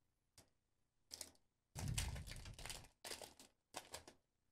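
Foil Pokémon booster pack wrapper crinkling as it is handled and torn open by hand: a series of short rustles, the longest about two seconds in.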